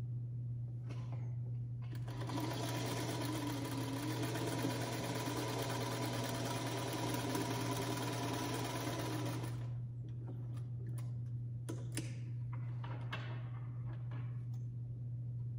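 Small black vintage sewing machine stitching a seam at a steady speed for about eight seconds, starting about two seconds in. Afterwards come a few light clicks and rustles of fabric being handled.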